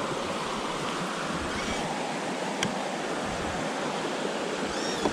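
Steady, even rushing noise, with two faint short bird-like chirps and a single small click partway through.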